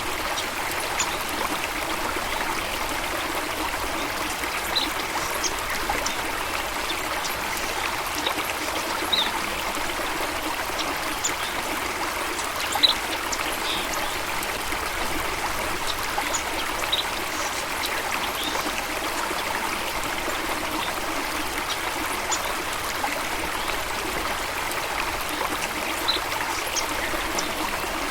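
Steady rush of flowing water, with brief faint high-pitched chirps scattered through it.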